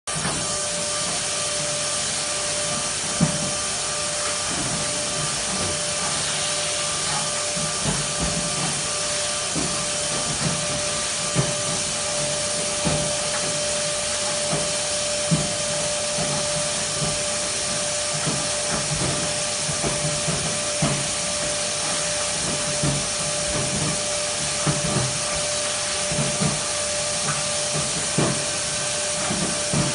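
A powerful vacuum pulling air through sheet-metal ductwork, with a steady rush and a constant whine. Irregular light knocks sound against the duct walls throughout.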